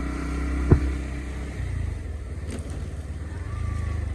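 Single-cylinder Bajaj Pulsar 200 motorcycle engine running steadily at low road speed. There is one sharp thump about three-quarters of a second in, and the engine note changes about a second and a half in.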